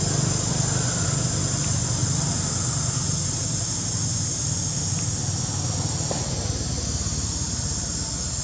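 Steady high-pitched insect chorus over a continuous low rumble.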